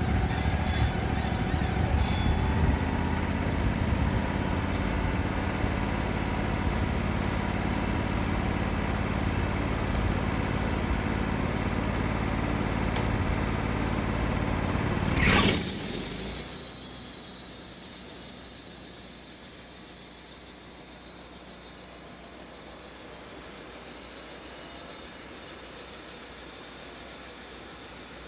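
Portable sawmill's engine running steadily, then stopping abruptly about halfway through, leaving only a steady high hiss.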